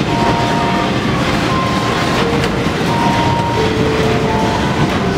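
A haunted-house ride's car rattles and rumbles steadily along its track in the dark. Above the rumble, eerie held tones from the attraction's soundtrack change pitch every second or so.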